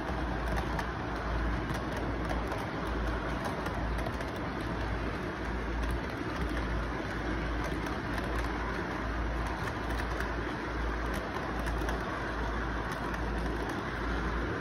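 Model freight train running along its track: a steady rolling noise of the wheels and motor with a low, uneven pulsing hum.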